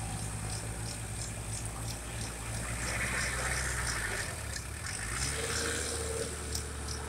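Farm tractor engine running steadily in the distance, a low even hum that shifts slightly in pitch about four seconds in.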